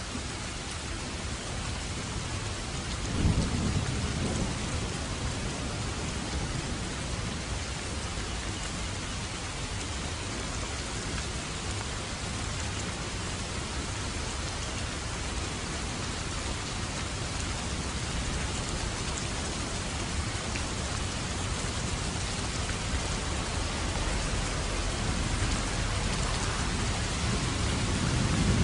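Steady rain falling, with a low rumble of thunder that breaks suddenly about three seconds in and another that builds near the end.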